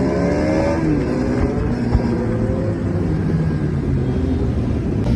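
Several sport-motorcycle engines running together, their pitch rising and falling with light revving.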